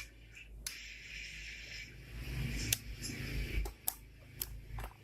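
A string of light, irregular clicks and taps, with a brief hiss in the first couple of seconds, over a low hum.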